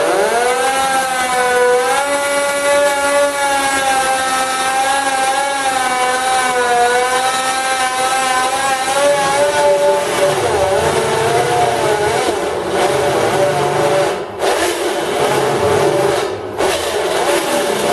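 Electric drill running a nano-coated step drill bit into stainless steel sheet, with a loud gear whine that rises as the drill spins up and wavers in pitch. From about halfway it turns rougher with a low rumble as the bit cuts, dipping briefly twice near the end. The noisy gearbox is, by the owner's account, dying.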